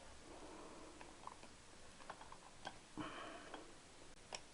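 Faint, scattered small clicks and taps of small engine parts being handled, with a short scraping rustle about three seconds in and a sharper tick near the end.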